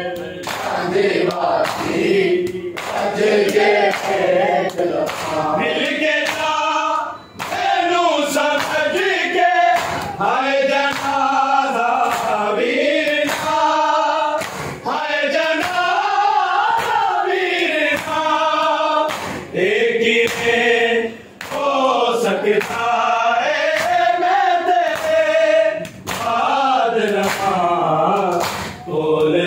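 Men chanting a noha, a Muharram lament, in chorus, with sharp slaps of hands striking bare chests (matam) running through the chant.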